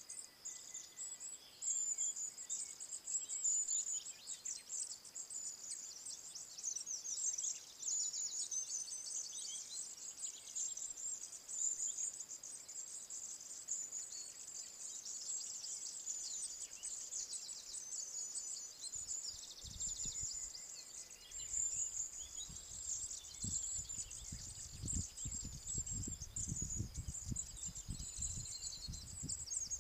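A continuous high-pitched chorus of songbirds trilling and chirping over steady insect chirping in scrubland. From about two-thirds of the way in, a low rumble sits under it on the microphone.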